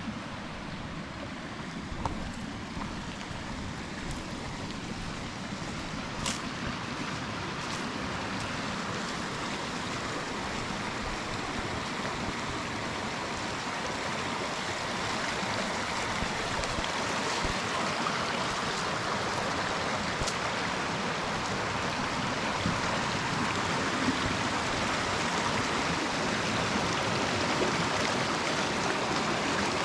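Small mountain stream running over rocks between snow and ice banks, a steady rush of water that grows gradually louder. A few light clicks come in the first six seconds or so.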